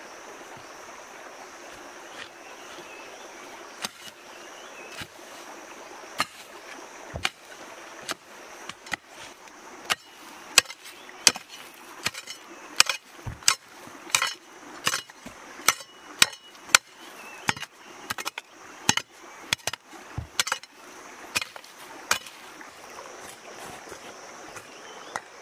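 Hand hoe chopping into earth in repeated strokes, about one to two a second, starting a few seconds in, loudest in the middle and stopping shortly before the end. Under it runs the steady sound of flowing stream water.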